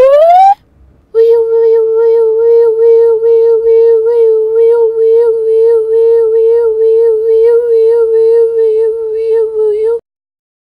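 A rising pitched glide that breaks off, then after a short gap one high note held steady for about nine seconds with a slight, regular wobble, stopping abruptly near the end.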